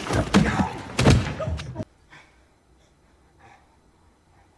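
Movie soundtrack: loud, busy noise with a few heavy thuds, then a sudden cut about two seconds in to near quiet with only faint scattered small sounds.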